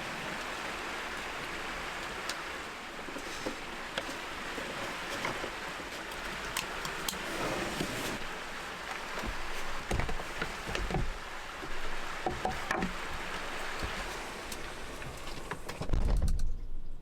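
A stream flowing steadily, with scattered clicks and a few low knocks, and a short loud low rumble near the end.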